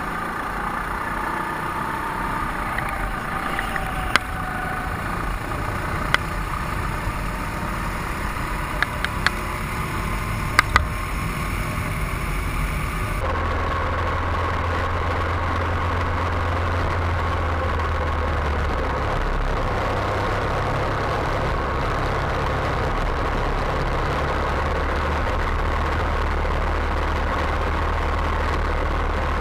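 Go-kart engines running steadily, with a few sharp clicks in the first half. About halfway through, the sound switches abruptly to a steadier engine drone with a stronger low hum.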